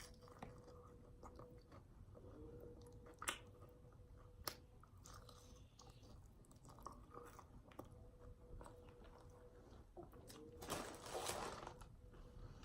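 Quiet chewing and crunching of nacho tortilla chips, with scattered faint sharp crunches and a longer, louder crunching stretch near the end. A faint steady hum sits underneath.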